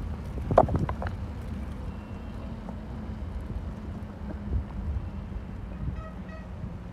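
Steady low rumble of a bicycle rolling over paving tiles, with wind on the microphone. A brief rattle about half a second in, and two short high beeps near the end.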